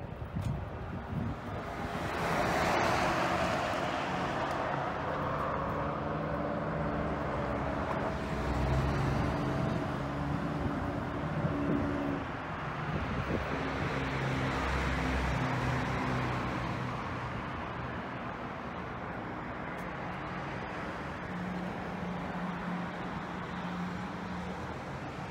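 Street traffic: a vehicle passes about two seconds in, over steady road noise and an engine hum.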